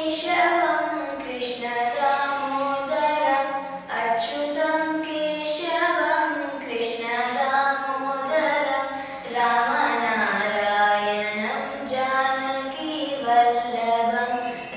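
A young girl singing solo and unaccompanied, in continuous phrases of held notes with gliding pitch.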